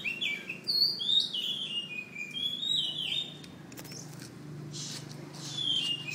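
Oriental magpie-robin singing a run of clear whistled phrases with rising and falling slurs. It pauses for about two seconds midway, then starts singing again near the end.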